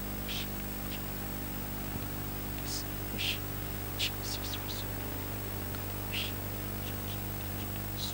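Quiet whispered praying into a microphone: scattered soft hissing s-sounds with no voiced words, over a steady electrical hum and hiss from the sound system.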